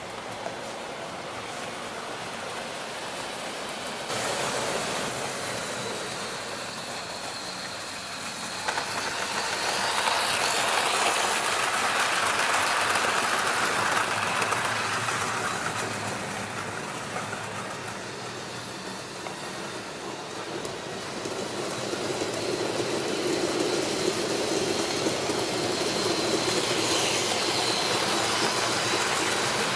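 Model trains running on a layout: a steady rushing rumble of small wheels on track and a light motor whine. It swells as a train draws near about nine seconds in, fades, then swells again from about twenty-two seconds.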